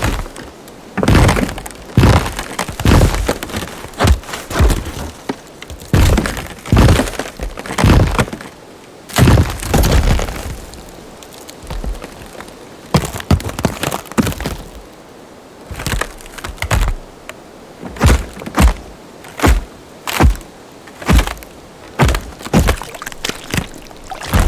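Designed tree-creature sound effects: a long run of sharp wood cracks, snaps and knocks, about one or two a second, each with a short ringing tail. A heavier, longer crack comes about nine seconds in, and the hits thin out for a couple of seconds in the middle.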